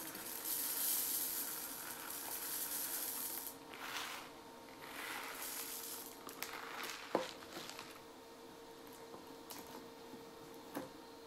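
Dry rice poured from a bag into an empty Pringles tube: a rushing hiss of grains hitting the tube, in two pours, the second about five seconds in. A few sharp clicks and taps follow as the bag and tube are handled.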